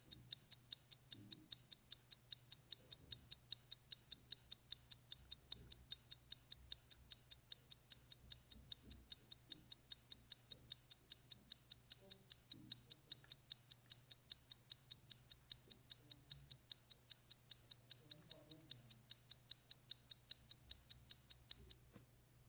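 A clock ticking in a fast, even rhythm, which stops suddenly just before the end.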